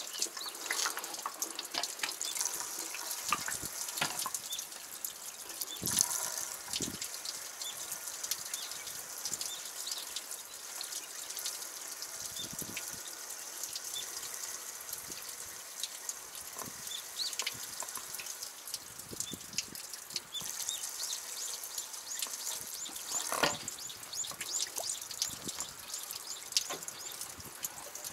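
Gasoline pouring from a plastic jerry can through a flexible spout into a machine's fuel tank: a steady trickling pour with scattered small clicks.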